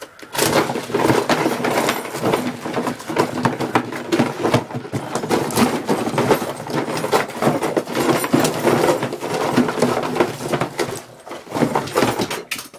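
Cardboard box being torn open and roughly handled: a dense, continuous run of tearing, scraping and knocking that stops suddenly near the end.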